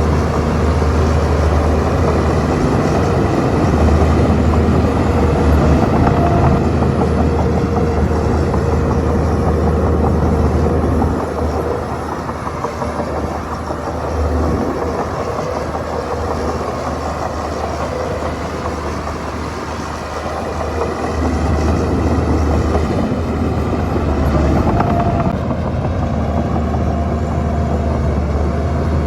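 Shantui bulldozer's diesel engine running under load as it pushes fill, a steady low drone that eases off about a third of the way in and picks up again near two-thirds.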